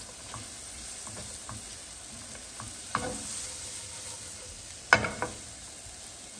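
Sliced mushrooms sizzling in a hot nonstick frying pan while a silicone spatula stirs them. The butter has been soaked up and the mushrooms have not yet let out their water. The spatula knocks against the pan about three seconds in and, loudest, about five seconds in.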